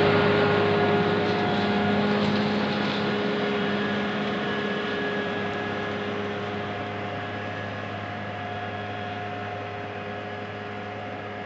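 New Holland T6080 tractor's diesel engine running steadily under load as it pulls a five-shank subsoiler through damp soil; the tractor is new and its engine is being run in. The sound fades steadily as the tractor moves away.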